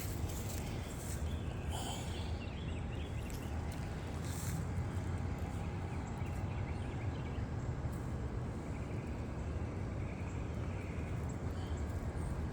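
Outdoor background sound: a steady low rumble with a few faint, wavering high chirps and a couple of soft rustles.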